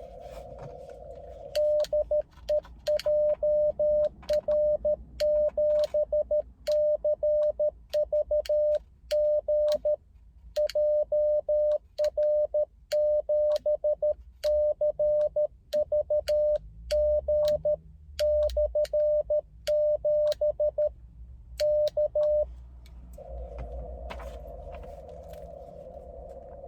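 Amateur radio transceiver's CW tone sending Morse code: a single mid-pitched tone keyed on and off in dots and dashes for about twenty seconds, with a sharp click at each keying. Before and after the sending there is the hiss of the receiver through a narrow CW filter.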